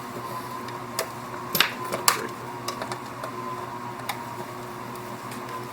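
A few sharp, light clicks from hands working the Epson U220 printer's ribbon-advance mechanism as its tension adjustment is pulled tight. A steady faint hum sits underneath.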